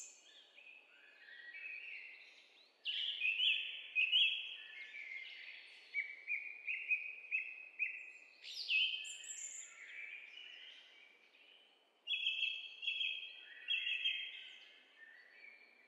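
Songbirds singing: phrases of short, clear whistled notes, several birds overlapping, over a faint steady background hiss.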